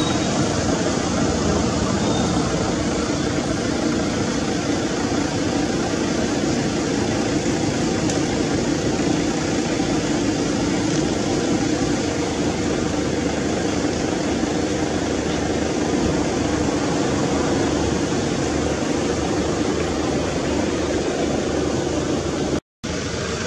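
Steady, even rushing noise with a low hum underneath, unchanging in level, cut off by a brief dropout near the end.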